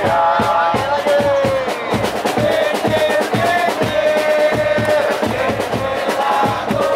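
Football supporters in the stands singing a chant together in long held notes, over drums beating steadily several times a second.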